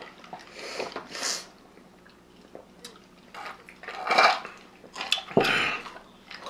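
Iced drinks being sipped from glasses, with ice clinking against the glass in a few short bursts; the loudest comes about five and a half seconds in.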